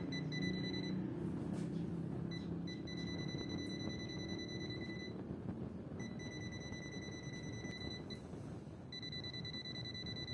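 UNI-T clamp meter's non-contact voltage (NCV) detector beeping with a high-pitched tone near a live phase wire, signalling voltage present. It gives rapid short beeps at first, then a steady tone that drops out and comes back a few times as the meter is moved along the wire.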